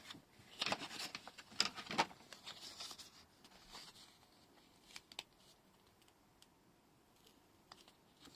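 Paper being handled on a table: several short rustling, scraping strokes in the first few seconds, then a couple of light clicks about five seconds in.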